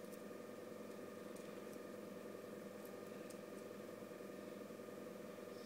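A steady, faint machine hum holding several fixed tones, with a few faint ticks. No sneeze or voice is heard.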